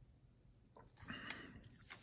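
Near silence, then from about a second in a faint rustling with a few sharp clicks from a stainless steel link watch bracelet being gripped and slid off the wrist.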